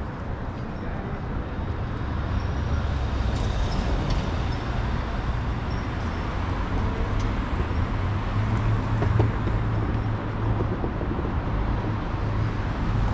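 City street traffic: a steady low rumble of vehicle engines and road noise, growing somewhat louder about two-thirds of the way through.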